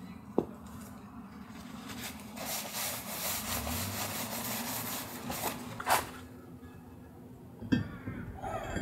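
Quiet handling of metal brake parts and tools, with a light click about half a second in and a sharper metallic clink about six seconds in.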